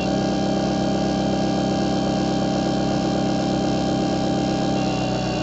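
12-volt DC worm-drive gear motor running steadily with no load at close to full speed on a PWM speed controller, its hum made louder by the wooden table it sits on. Its pitch dips slightly near the end.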